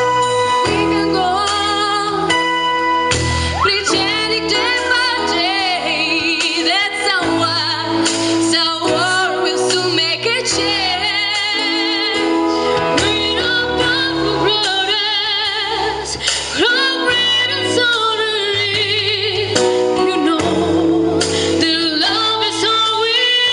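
A woman singing a melody with strong vibrato over instrumental backing music.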